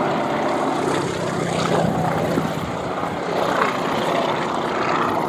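Steady drone of the nine-cylinder radial piston engines of a pair of Yak-52 aerobatic planes flying in formation overhead, the engine note wavering a little as they manoeuvre.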